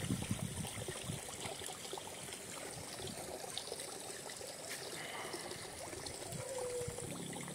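Water trickling and running steadily in a small irrigation ditch.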